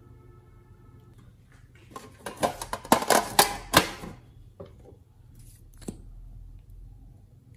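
Fingers pressing and poking sticky slime, giving a dense run of crackling, popping clicks for about two seconds, then a few single clicks.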